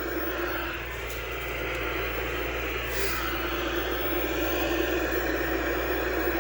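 Steady hum and static hiss from a powered-on vintage tube black-and-white television.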